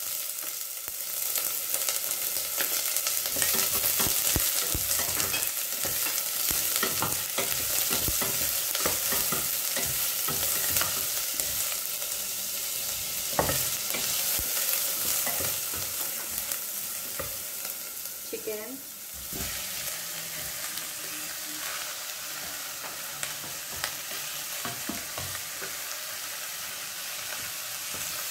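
Garlic and onion sautéing in hot oil: a steady sizzle, with a cooking utensil scraping and clicking against the pan as it is stirred. The sizzle dies down a little past the middle.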